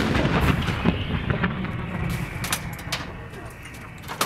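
Rolling echo of an M777 155 mm howitzer's shot: a low rumble that slowly dies away over about four seconds, with a few sharp knocks from the crew working the gun.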